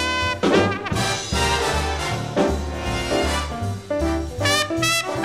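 Instrumental break of a swinging jazz orchestra: brass playing a melody with vibrato over a steady plucked bass line, the full band hitting a loud chord about half a second in.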